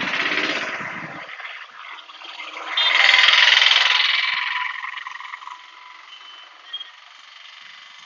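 Road traffic noise: a rumbling vehicle pass fading out in the first second, then a louder rushing hiss from about three seconds in that slowly dies away.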